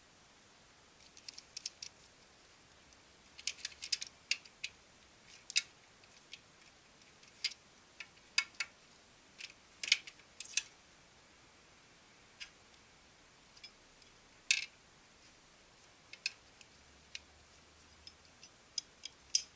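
Irregular clicks and light taps of plastic and metal parts being handled as a paper feed clutch is fitted onto its shaft inside a Ricoh MP 4000-series copier and a metal bracket is picked up, with a few louder knocks midway.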